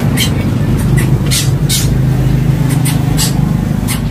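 A vehicle engine running steadily with a low hum, under sharp metallic clicks a few times a second from scissors snipping snail shells in a plastic bowl.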